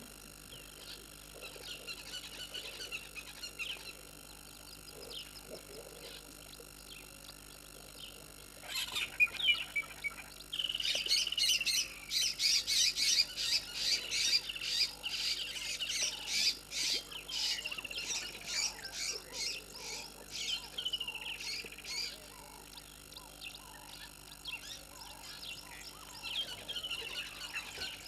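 Wild birds chirping and calling, with a loud spell of rapid, repeated chirps and trills from about nine seconds in until about twenty-two seconds. Faint frog croaks can be heard in the first few seconds.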